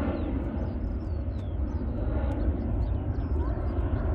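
Airbus A320 jet engines at climb power after takeoff: a steady, distant rumbling roar with a low, fluttering undertone.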